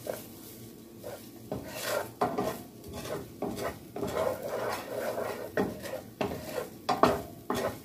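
Wooden spatula stirring diced green pepper and onion in oil around a white-coated skillet: irregular scrapes and knocks of wood against the pan, coming thick and fast from about a second and a half in.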